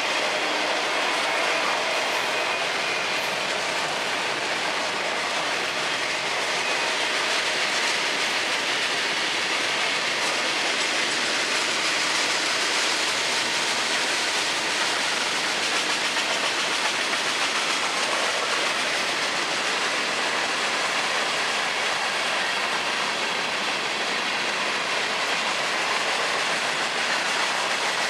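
Cars of a long mixed freight train rolling steadily past: autoracks, tank cars, boxcars, hoppers, then double-stack container well cars. They make a continuous noise of steel wheels on rail.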